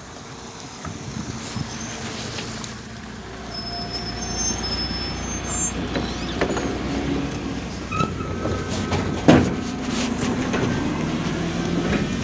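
MAZ 203.065 city bus running, its engine rumble growing steadily louder. There are a few short high squeals in the first half and one sharp burst about nine seconds in.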